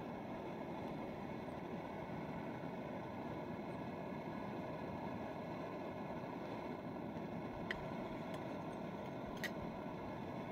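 Small portable gas canister stove burning with a steady rushing sound, with two light clicks about a second and a half apart near the end.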